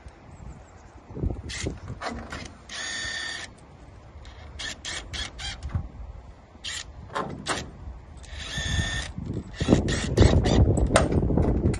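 Cordless drill running in two short bursts of about a second each, about three seconds in and again about eight and a half seconds in, fixing the polycarbonate end sheet to the greenhouse frame. Clicks and knocks of handling come between, and a louder stretch of knocking and rattling fills the last two seconds.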